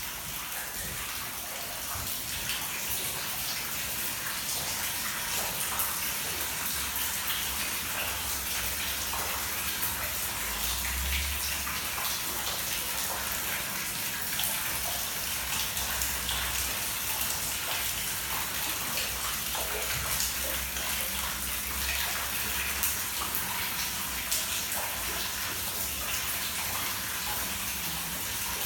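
Water pouring and dripping steadily, a dense patter of many separate drips and splashes.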